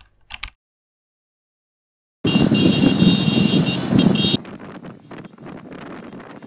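Road traffic on a busy street, with motorcycles: a loud stretch of traffic noise that drops to a quieter street background about halfway through.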